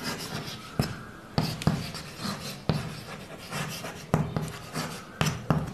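Chalk writing on a blackboard: scratchy strokes broken by several sharp taps as the chalk strikes the board.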